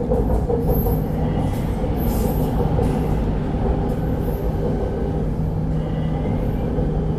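MRT Purple Line electric metro train running between stations, heard from inside the car: a steady rumble of wheels on the track with a low, even hum.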